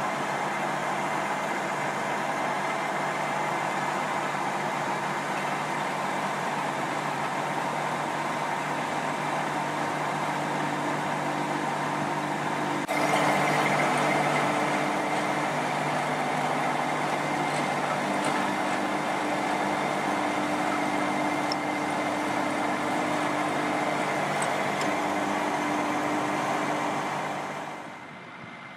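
Tractor engine running steadily nearby, with a constant even drone. Partway through it jumps suddenly louder, and it drops away near the end.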